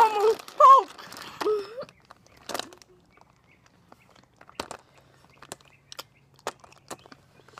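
A girl's voice making short wavering, wordless sounds for the first second and a half, then scattered faint clicks from handling and eating sour candies.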